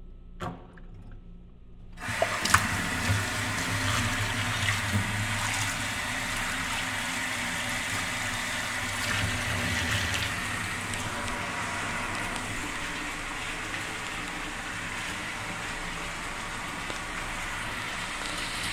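Tap water running hard into a sink, turned on suddenly about two seconds in after a light knock, then running steadily.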